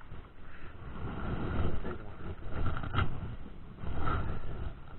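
A brown trout landed onto the bank and flopping on dry leaves and dirt: rustling and thuds, with one sharp knock about three seconds in. A low rumble of wind and handling noise on the action camera runs under it.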